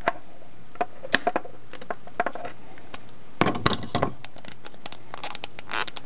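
Plastic clicks and knocks from Loc-Line segmented hose and its assembly pliers being handled, with scattered single clicks and a quick run of clicks about three and a half seconds in.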